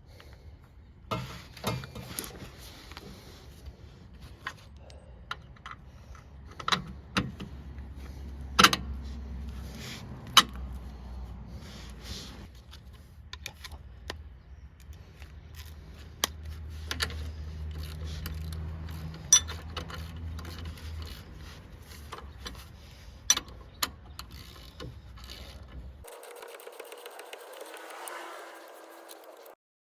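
Scattered sharp clicks and knocks with some scraping, and a low rumble at two points. About 26 seconds in it gives way to a steady hissing noise that cuts off just before the end.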